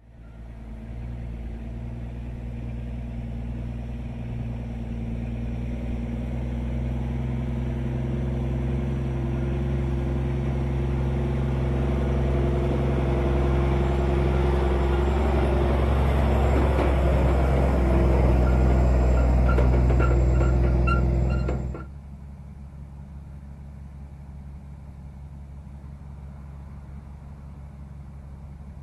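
A large engine running steadily, getting louder over about twenty seconds, then cutting off suddenly to a fainter steady hum.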